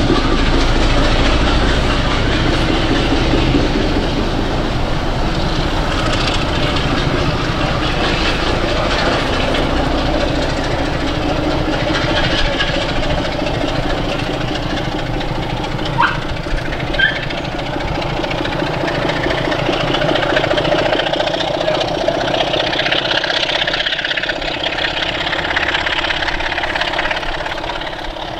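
Heavy diesel locomotive engine running with a steady low rumble, with two brief high squeaks a little over halfway through.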